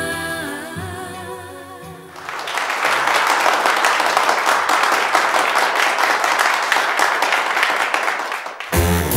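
A held sung note over accompaniment fades out over the first two seconds, then an audience applauds for about six seconds. Near the end a swing number starts abruptly.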